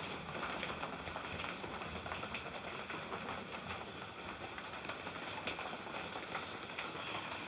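Heavy rain falling steadily, a continuous even hiss with faint scattered drop ticks.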